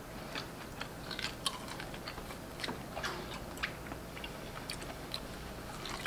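Close-up chewing and gnawing of meat off a bone-in ribeye steak bone, heard as a scattered run of short clicks and mouth sounds.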